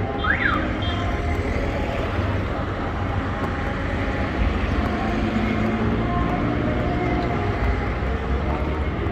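Street traffic: a steady rumble of cars and minibuses running along the road, with a short high chirp, rising then falling, about half a second in.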